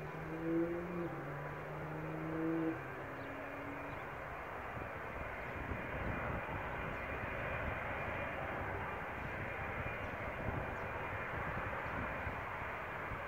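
Distant Boeing 747-400 taxiing, its jet engines a steady, even hiss-like noise. A few short low tones sound in the first three seconds.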